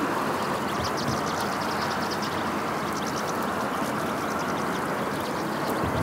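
A flock of European goldfinches twittering, short bursts of quick high chirps scattered through, over a steady rushing background noise.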